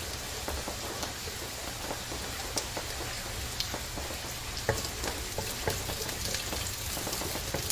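Chopped onion frying in a little oil in a stainless steel wok: a steady, soft sizzle, with a few light clicks scattered through it.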